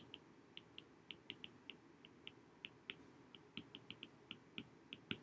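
Stylus tip clicking on an iPad's glass screen during handwriting: faint, short, sharp ticks at irregular spacing, about five or six a second.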